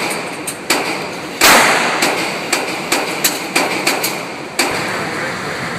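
Gunfire: about ten irregularly spaced shots of differing loudness, the loudest about a second and a half in.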